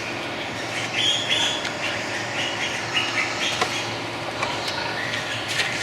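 Pig-shed ambience: a steady mechanical hum and hiss, with short high squeals from pigs scattered through it.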